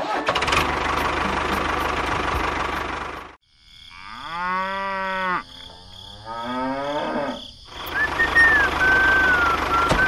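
A cow mooing twice in a long, bending call, starting about four seconds in, between stretches of steady tractor engine noise. Near the end, faint high chirps sound over the engine noise.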